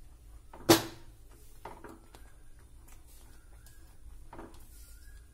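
A whisk stirring a thin cornflour mixture in a nonstick pan, with a sharp knock about a second in and a few lighter taps of the whisk against the pan.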